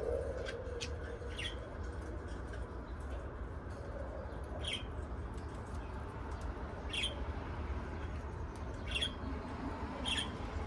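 Small pet parrots giving short, high squawks and chirps, one at a time, every couple of seconds.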